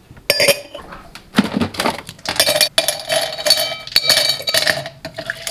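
Ice cubes dropping one after another into a drinking glass, clinking, with the glass ringing on after the hits.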